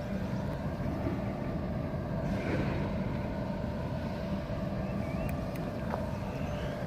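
Steady low outdoor rumble with a constant mid-pitched hum, a short chirp about five seconds in and a faint click near six seconds.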